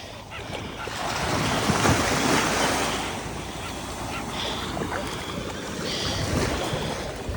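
Gulf surf washing onto the beach, one wave swelling and breaking about a second in. Several short high-pitched calls come in the second half.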